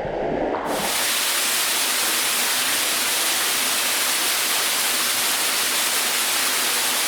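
Waterfall rushing close by: a steady, even hiss of falling water that sets in suddenly under a second in.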